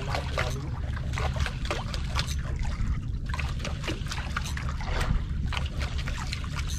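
Seawater slapping and splashing irregularly against a small outrigger boat's hull and float, over a steady low rumble.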